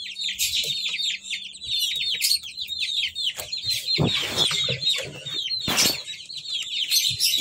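Chicks peeping, many rapid high cheeps that fall in pitch and overlap continuously. A couple of knocks from handling come about four and six seconds in.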